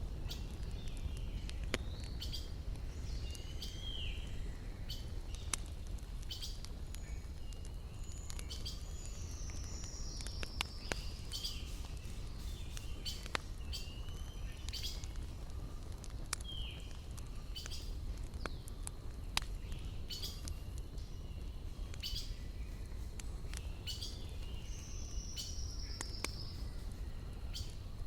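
Wood fire crackling, with irregular sharp pops of burning logs over a steady low rumble, while forest birds chirp with short calls and a couple of longer falling notes.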